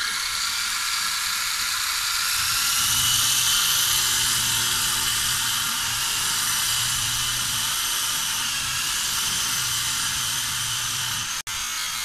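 Syma S107G mini RC helicopter's small electric motors and rotors whirring steadily as it hovers close by, with a lower hum joining about two and a half seconds in. The whir drops out for an instant near the end.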